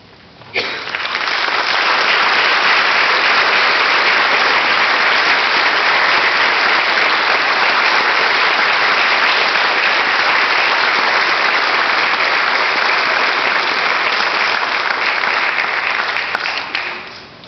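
Audience applauding: it breaks out suddenly about half a second in, holds steady and strong, then dies away near the end.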